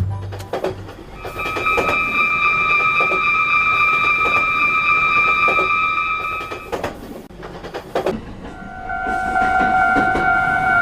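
Train sound effect: a long steady horn note of about five seconds, then after a short gap a second, lower horn note starting near the end, over irregular wheel clacks on the rails.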